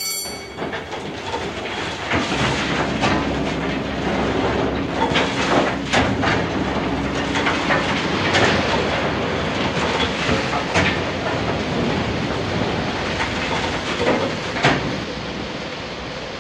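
Coal-loading sound effect from a model coal house's hidden speaker: a steady rushing noise of coal sliding down a chute into a wagon, with scattered knocks, starting abruptly as the system is triggered.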